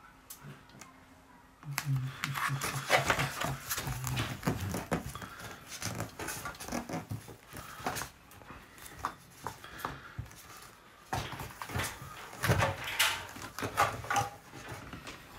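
Low muttering voice with a run of small clicks and knocks from plastic miniatures being handled on a gaming table, starting about two seconds in.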